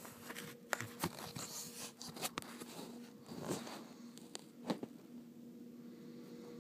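Scattered sharp clicks and short crackling, rustling noises over a faint steady hum.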